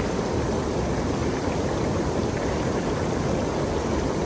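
Fast river water rushing steadily below a low weir, with the current running high from a dam release.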